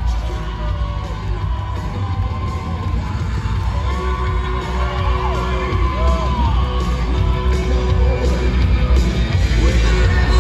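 Loud music with a strong bass, with people in a crowd yelling and whooping over it.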